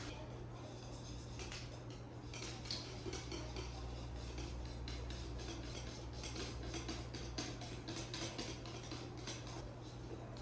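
Kitchen utensils clinking against bowls and dishes, many quick, irregular clicks, as batter is mixed and handled.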